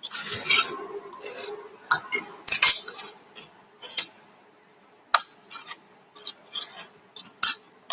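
Metal parts being handled, clinking and clattering in an irregular run of sharp clicks, with a couple of longer scraping rattles near the start and about halfway through.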